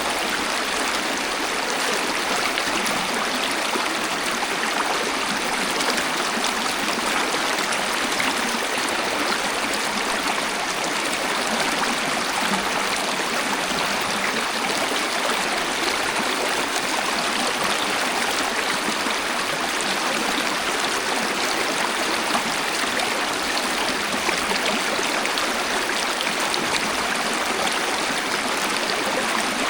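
Waterfall water rushing and splashing in a steady, unbroken wash, with almost no deep rumble.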